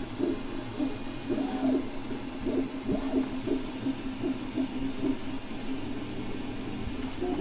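Original Prusa i3 3D printer's stepper motors singing as the print head moves: a steady low hum with short, uneven tones stepping and gliding up and down in quick succession.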